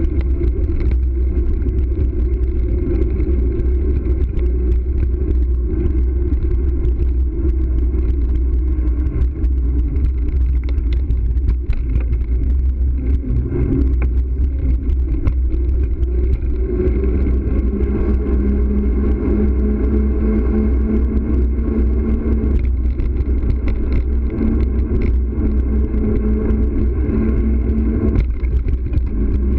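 Steady low rumble of wind buffeting and road vibration picked up by a bicycle-mounted camera, its tyres rolling over brick pavers and asphalt. A steadier hum joins a little past halfway and stops near the end.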